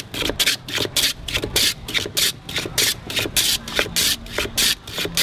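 A block of ice pushed by hand back and forth across the blade of a wooden ice-shaving box, shaving it into snow: a rhythmic scraping rasp of about three to four strokes a second.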